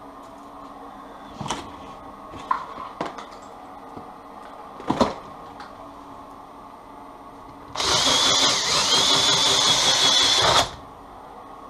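Cordless drill-driver running for about three seconds, turning the drive shaft of a homemade cable-stripping rig as an insulated wire is fed through; its whine dips briefly partway. Before it, a few knocks and clicks of the wire and tools being handled.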